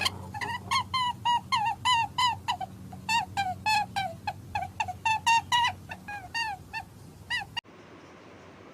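A rapid series of short, squeaky animal calls, about three a second, each bending slightly in pitch, presented as a rabbit's voice. The calls stop abruptly near the end.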